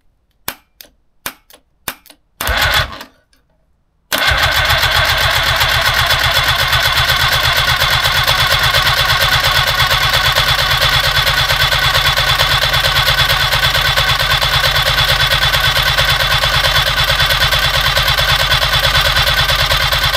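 A few sharp clicks and a short burst of cranking, then from about four seconds in an old Trabant two-cylinder two-stroke engine is turned over steadily by its starter motor, with an even, rapid pulsing. The engine, primed with fuel and the throttle slightly open, does not catch.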